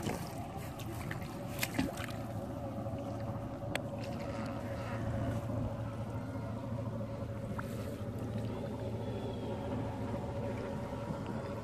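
Wet gill net being hauled hand over hand out of a river into a wooden canoe, water splashing and dripping off the mesh, with a few light knocks. A steady low engine hum runs underneath.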